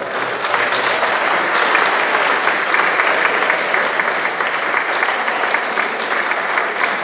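Audience applauding, many hands clapping in a dense, steady patter that sets in at the start and holds.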